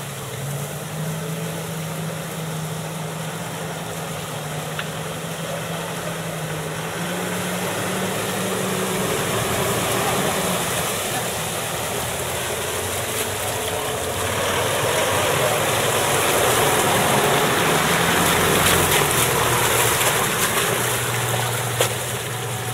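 Mitsubishi four-wheel-drive wagon's engine running at low revs as it creeps down into a muddy water crossing, the revs rising a little about seven seconds in. From about halfway, a loud wash of water churns and splashes around the vehicle as it drives through.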